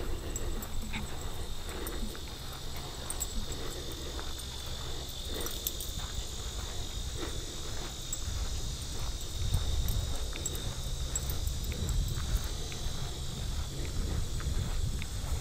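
Footsteps walking along a grassy dirt trail, with a steady high-pitched insect trill underneath.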